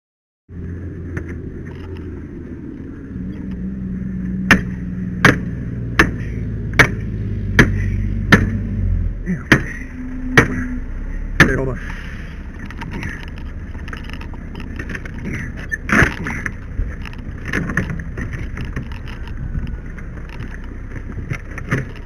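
A run of about eight hard metal strikes less than a second apart, forcible-entry irons (flat-head axe striking a Halligan bar) being driven into a padlocked fence gate, over a steady engine hum that stops about nine seconds in. Lighter knocks follow a few seconds later.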